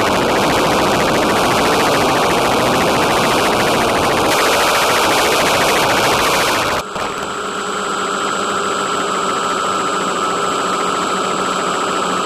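Onboard audio of a small electric FPV aircraft in flight: a loud hissing rush for about the first seven seconds, then an abrupt switch to the steady hum and high whine of its electric motors.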